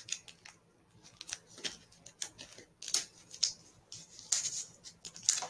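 Trading cards being handled: an irregular run of short, crisp rustles and clicks as cards are slid and shuffled.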